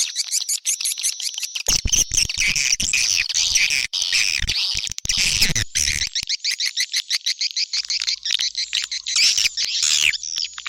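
Swiftlet calling sound of the 'China Kalbar' type: a dense, fast stream of high twittering chirps repeated without a break, the lure call played to draw swiftlets to a nest house. Low thuds sound beneath it in the first half.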